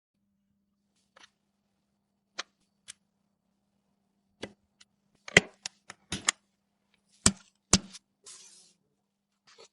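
Scattered sharp clicks and taps of PC hardware being handled and fitted during a build. They are few at first and come quicker and louder from about halfway, and a short rustle follows near the end.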